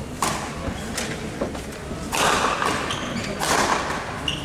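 Badminton rally: a few sharp racket hits on the shuttlecock, with longer scuffing noises of the players' footwork on the court floor, echoing in a large sports hall.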